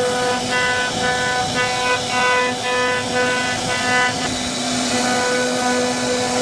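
CNC router spindle running with a steady high whine, cutting into wood. The upper part of the sound pulses regularly for the first few seconds, then evens out.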